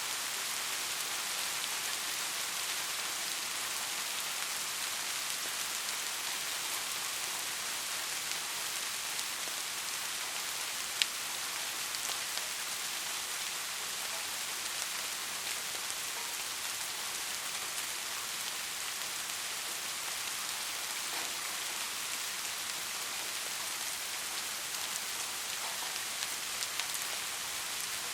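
Steady rain falling, an even hiss with scattered drop sounds. A single sharp tick stands out about eleven seconds in.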